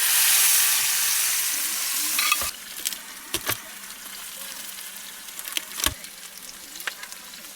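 A steak sizzling in beef tallow in a hot cast iron pan under a cast iron press. About two and a half seconds in, the loud sizzle drops suddenly to a faint hiss, with a few sharp knocks and clicks after.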